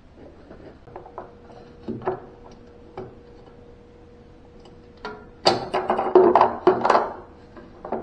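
Sheet-steel frame bracket of a washing machine clanking and rattling against the cabinet as it is worked loose and lifted out: a few light knocks, then a quick run of loud metallic clanks about five and a half seconds in.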